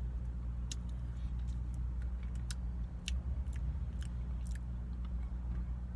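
A person biting into and chewing a mouthful of spicy potato taco, with scattered wet mouth clicks, over a steady low hum.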